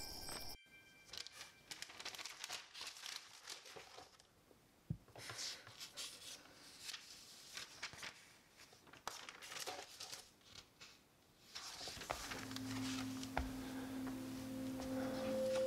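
Paper rustling and crinkling with small clicks as the pages of a photo album are handled and turned. About twelve seconds in, soft music of low held notes begins.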